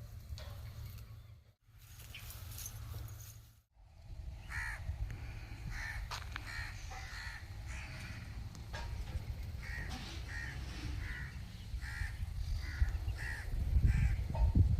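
Repeated bird calls, short and evenly spaced at about one or two a second, starting about four seconds in, over a low rumble that grows louder near the end. The sound cuts out briefly twice near the start.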